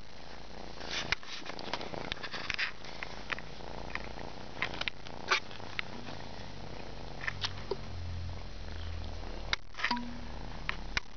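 Kitten purring, a low steady rumble that grows stronger about halfway through, with scattered short clicks.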